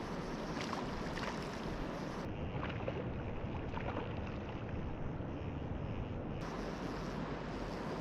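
River water running in a steady rush, with a few faint short sounds over it.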